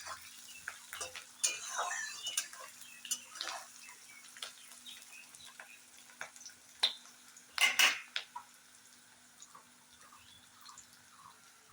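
Spatula scraping and knocking against a kadai while onions are stirred in hot oil, browning until they turn reddish. Irregular clicks and scrapes, with a louder clatter about eight seconds in, then fewer, lighter taps.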